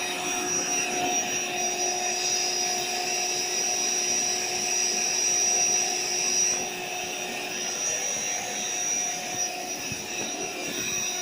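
AeroBed's built-in electric air pump running steadily, a motor hum with a high whine over it, inflating the raised air mattress.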